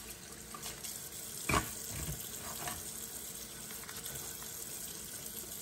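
Kitchen tap running steadily, its water splashing onto a pile of blue crabs in a stainless steel sink, with one sharp knock about a second and a half in.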